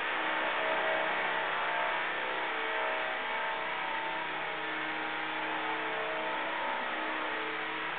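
Esky Belt CP CX 450-size RC helicopter running: a steady whine from its electric motor and rotor drive, its pitch wavering slightly up and down.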